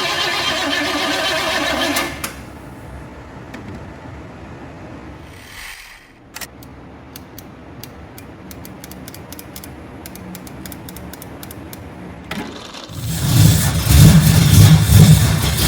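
A loud steady sound that cuts off about two seconds in, then a quieter stretch with a run of sharp light clicks. About thirteen seconds in, an engine fed by a freshly rebuilt Holley 750 carburetor comes in loudly, rising and falling.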